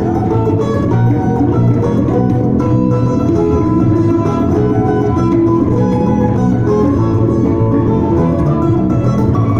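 Live duet of an amplified contrabass balalaika and a small long-necked plucked instrument, playing a continuous tune: deep plucked bass notes under a quick plucked melody.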